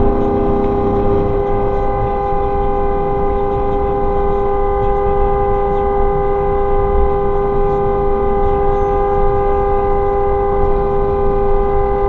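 Car horn held down without a break, one long steady blare sounding two notes together, over tyre and road noise: a drawn-out protest honk at another driver.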